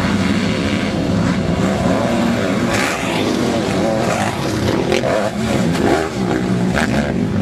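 Motocross bike engines revving hard on the track, several at once, pitch rising and falling with the throttle.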